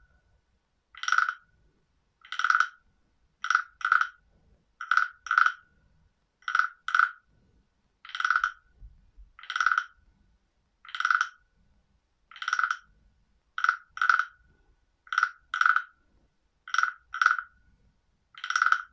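Frog calling: short, pitched croaks repeated about every one and a half seconds, many of them given as quick double notes.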